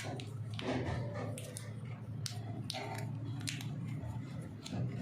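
A series of short, irregular clicks and taps over a steady low hum.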